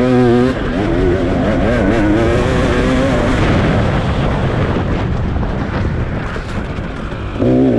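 A racing vehicle's engine revving hard, its pitch rising and falling as the throttle is worked, loudest at the start and again near the end.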